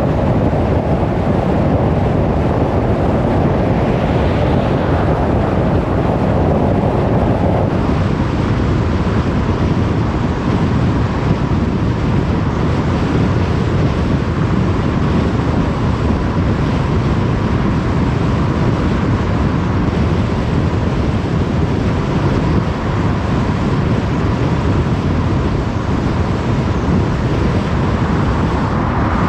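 Steady road noise of a car driving on a motorway: tyre and wind noise that changes slightly in texture about eight seconds in.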